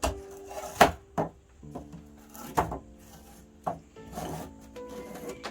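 A window screen frame being worked open by hand: several sharp knocks and short scrapes. Background music with held notes plays under it.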